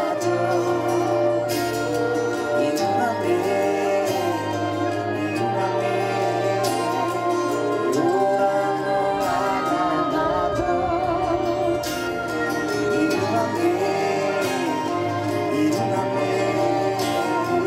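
Live singing with a symphony orchestra: a voice with vibrato over sustained strings and a steady bass line.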